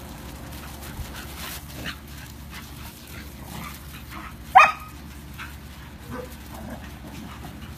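Dogs at play, with one loud, short bark about halfway through and a few faint dog calls before and after it.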